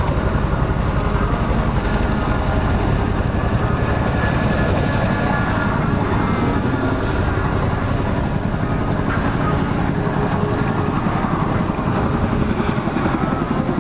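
Boeing CH-47JA Chinook tandem-rotor helicopter flying past close by: fast, even blade chop from its two three-bladed rotors, with steady tones from its twin turboshaft engines and drive train over it.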